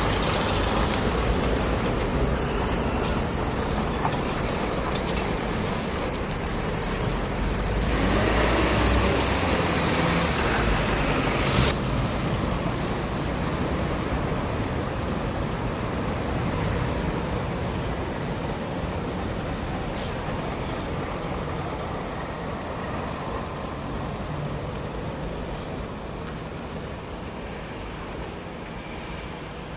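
Street traffic noise from passing road vehicles. A louder rush from about eight seconds in stops abruptly about four seconds later, and the traffic then slowly fades.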